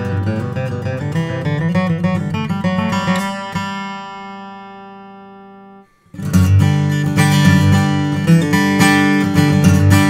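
Martin D-42 acoustic guitar with sinker mahogany back and sides and Adirondack spruce bracing, played solo. A passage of notes ends on a chord left to ring and fade for about two seconds, then after a brief break the playing resumes louder.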